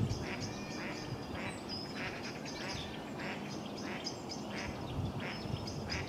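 A waterbird calling in a steady series of short, quack-like notes, a little under two a second, with small birds chirping high above it.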